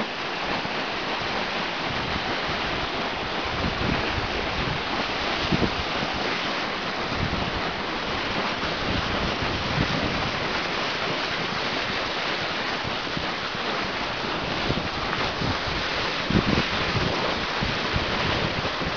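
Steady rushing wind noise on the microphone, with a few short low thumps.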